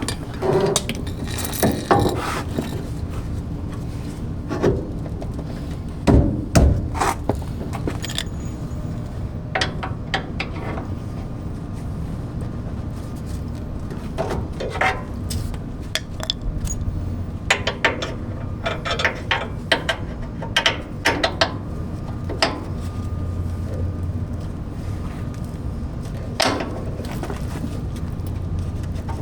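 Hand tools clanking and tapping on metal suspension parts in scattered knocks, loudest about six seconds in, over a steady low hum.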